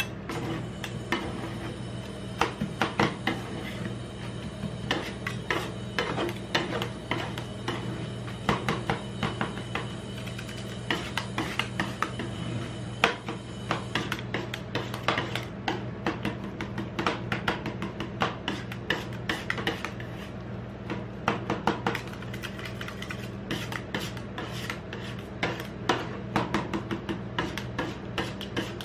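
Two metal spatulas chopping and scraping ice cream base and toppings on the metal cold plate of a rolled ice cream machine: quick clacks and rasping scrapes, over a steady low hum.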